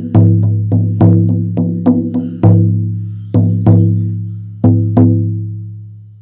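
18-inch buffalo-skin shamanic frame drum struck with a firm beater: a run of quick deep booms that slow down, the last stroke about five seconds in left to ring out and fade.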